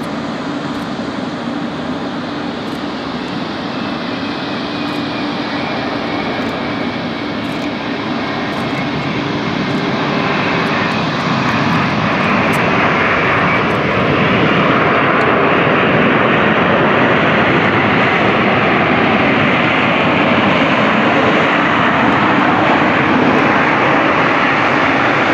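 Boeing 747-400 jet engines running as the airliner touches down and rolls out along the runway, with a faint whine falling in pitch over the first several seconds. The engine noise grows louder about ten to fourteen seconds in and stays loud as the jet rolls past.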